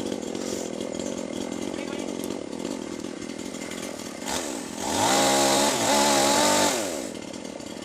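Chainsaw engine running steadily, then revved up to high speed about five seconds in for some two seconds before dropping back.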